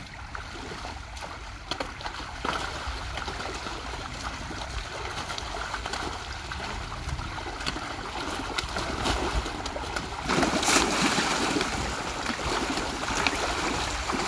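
Water lapping and splashing against a small boat or fishing raft, with scattered small knocks; the water noise grows louder about ten seconds in.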